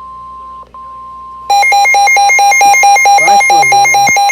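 Weather alert radio sounding a warning: a steady, high beep-tone (the 1050 Hz weather radio warning tone), then about a second and a half in a much louder, harsh electronic alarm pulsing several times a second over it, signalling an incoming weather warning.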